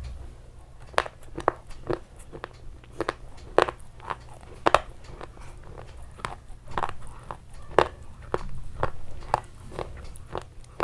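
Crunchy food being bitten and chewed in a run of irregular sharp crunches, about one or two a second.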